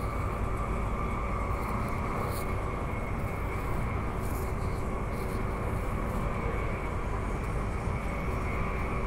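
Transperth B-series electric train running steadily at speed, heard from inside the carriage: a constant rumble of wheels on rail with a steady whine over it.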